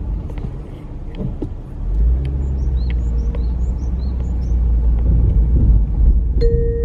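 Train rumbling through a railway level crossing while the crossing bell rings steadily, about three strokes a second. The rumble swells about two seconds in, and a steady tone starts near the end.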